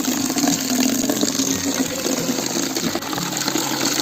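Water running steadily from a tap and gushing into a container as it fills.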